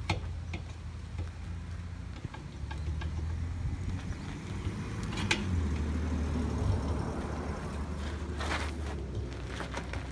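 Diesel engine idling with a steady low rumble, with a few sharp knocks and clanks from the truck's outer rear wheel being worked off the hub, one about five seconds in and several near the end.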